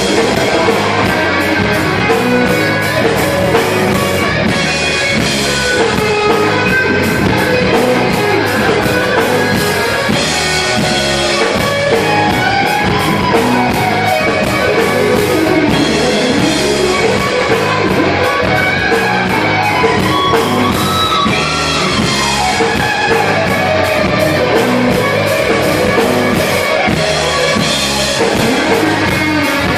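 Live rock music: an electric guitar solo over drums, with runs of notes sweeping up and down in pitch through the middle.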